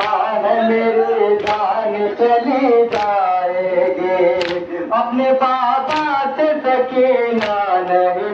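A group of men chanting a Muharram nauha (lament) together, with hand-on-chest beating (matam) landing in unison about every one and a half seconds.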